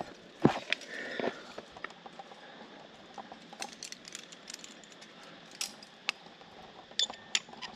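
Carabiners and quickdraws clinking on a rock climber's harness during a lead climb: scattered light metallic clicks and ticks, with a few sharper knocks.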